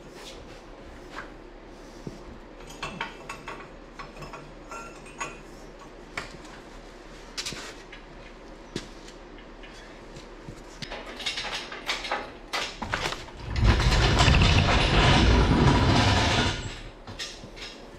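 Scattered light metal clinks and knocks from work on a steel truck frame and axle. About 13 seconds in comes a loud rolling rumble of about three seconds: the engine hoist's casters wheeled across the concrete shop floor.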